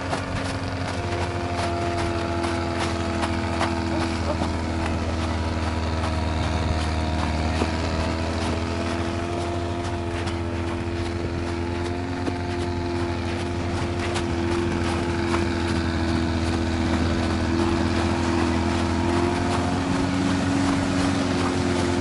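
Vehicle engines running steadily under load as a Trekol all-terrain vehicle slowly tows a Nissan SUV on a rope through snow: a continuous low drone at an almost even pitch.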